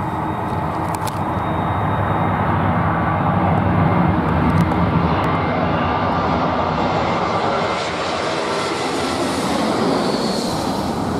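Twin-engine jet airliner passing low on final approach to land, its engines a loud, steady roar, with a high whine coming up near the end.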